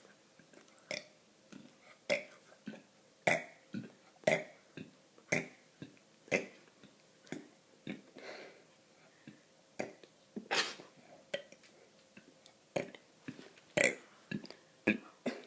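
A young girl burping over and over in a quick run of short, separate burps, about one or two a second.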